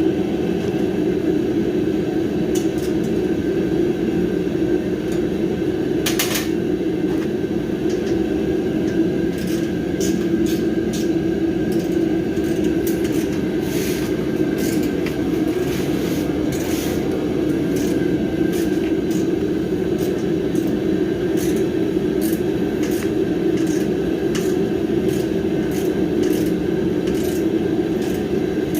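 A loud, steady droning hum fills the garage throughout, overlaid by scattered light metallic clicks and clinks of hand tools working the steel welding cart's bolts.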